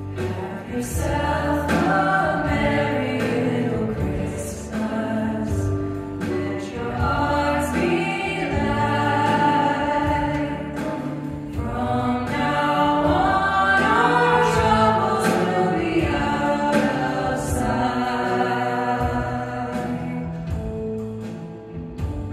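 A worship band performing: a group of voices singing together over band accompaniment of guitar and keyboard.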